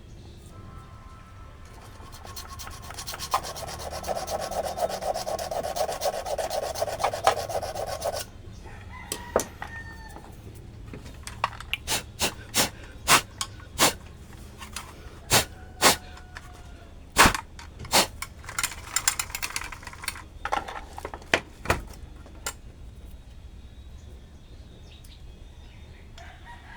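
Rasping, rubbing scrapes for about six seconds, then a long run of sharp clicks and knocks, as of hard objects being handled. A rooster crows in the background after the scraping stops and again near the end.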